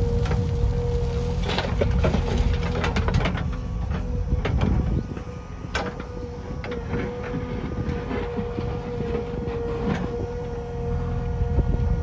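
JCB backhoe loader's diesel engine running under working load with a steady whine, while soil and stones dumped from the bucket clatter into a tractor trolley during the first few seconds. Single sharp knocks follow as the bucket digs back into the stony ground. The engine eases off about halfway through and picks up again near the end.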